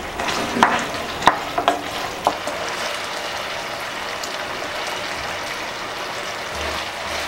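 Pressure-cooked pork cubes sizzling in a frying pan as their cooking liquid boils off, stirred with a wooden spoon. A few sharp clicks come in the first couple of seconds, then a steady sizzle.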